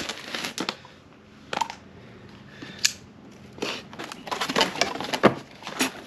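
Stiff black cardboard box being opened by hand: scattered clicks, scrapes and rustles as its flaps are lifted and folded back, sparse at first and coming thicker in the second half.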